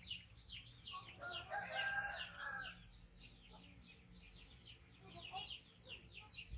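A rooster crows once, about a second in, over a steady run of short, high, falling chirps that repeat several times a second.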